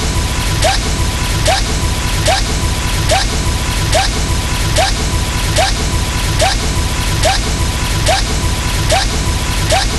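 A looped sound effect repeating evenly a little more than once a second, each repeat a quick rising chirp with a sharp crack, over a steady high tone and a dense low rumble.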